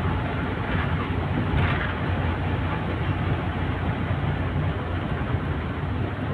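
A road vehicle driving along, heard from on board: a steady low rumble of engine and road noise.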